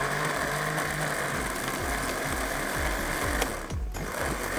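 Electric blender running, grinding green chillies, fresh coriander and mint with a little water into a green masala paste. The motor runs steadily, cuts out briefly near the end and starts again.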